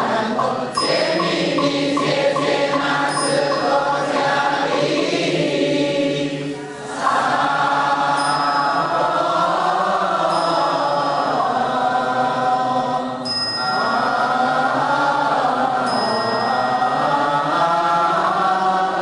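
Slow, melodic Buddhist chanting by several voices, with pauses about six and a half and thirteen and a half seconds in. A brief high ringing tone sounds about five times.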